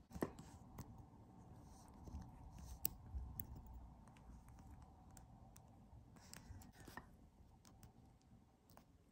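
Mostly near silence, with faint scattered clicks and light scraping from small metal watch parts being handled: the mainspring barrel of a Seiko 4R57A movement. The clearest clicks come just after the start and again about three seconds in.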